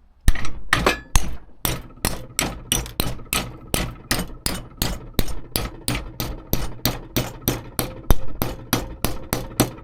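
Mallet beating a sheet-metal panel clamped in a vise, a quick steady run of sharp blows about three a second, bending a lip into the metal. A faint metallic ring hangs under the blows.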